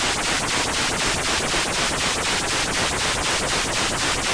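TV-static sound effect: a loud, even hiss with a regular flutter about five times a second.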